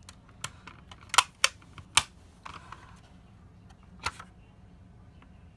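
Sharp clicks and taps of a model toy car being handled in the hand, its hinged parts and body knocking. A quick run of clicks in the first two seconds and one more about four seconds in.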